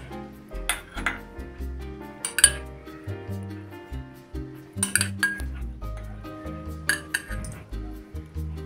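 A metal spoon clinking against glass several times, about every two seconds, as hot sugar syrup is spooned over a cake in a glass baking dish. Background music plays throughout.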